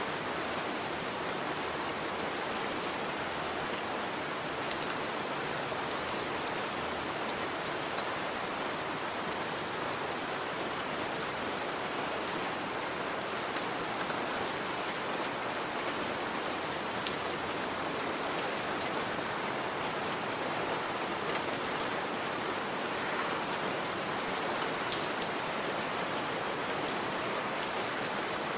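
Heavy rain falling steadily, with a dense even hiss and scattered sharp drip-and-splash clicks of individual drops.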